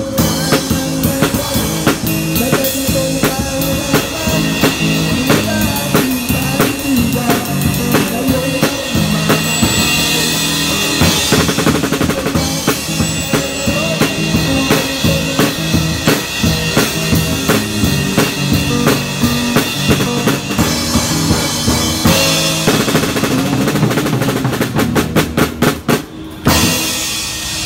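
Drum kit with Sabian AAX cymbals played fast and hard, with an electric guitar playing through a small portable amplifier. Near the end the drums play a rapid roll, then break off suddenly.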